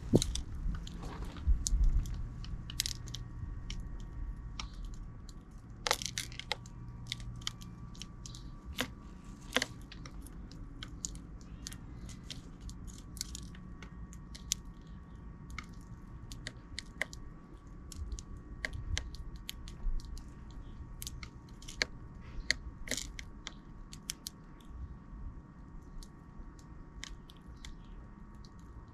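Sparrows pecking close to the microphone: a run of irregular sharp clicks and taps, with a few dull low thumps in the first couple of seconds.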